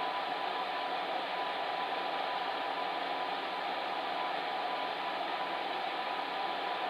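Fan heater running steadily: an even whoosh of blown air, with a faint steady hum.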